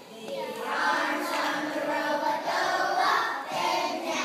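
A group of young children singing together, holding notes in short phrases.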